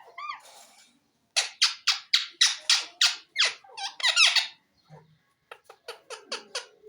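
Green pet parrot calling: two short arched notes at the start, then a run of about a dozen sharp, loud screeches, and near the end a quicker series of about eight shorter chirps.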